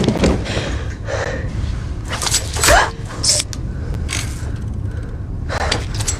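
A series of short gasps and strained breaths from people struggling, one with a rising vocal strain near the middle, over a steady low rumble.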